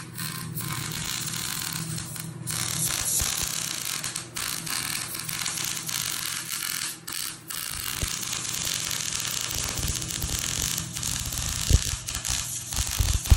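MIG welder arc crackling steadily as steel bumper tubing is welded, with a few brief breaks between welds. A couple of sharp knocks come near the end.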